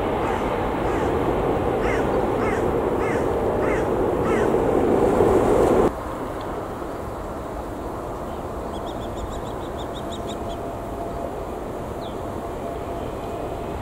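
Jet engines of a twin-engined widebody airliner running loud during its landing rollout just after touchdown, growing louder, while a bird calls about five times. The sound cuts off abruptly about six seconds in, leaving a quieter steady outdoor hum with a quick run of high bird chirps.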